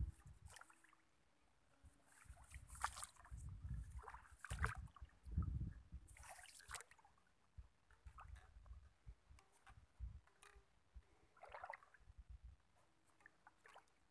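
Faint, irregular footsteps sloshing through shallow floodwater and wet mud, with rice stalks rustling and brushing against the legs in short bursts.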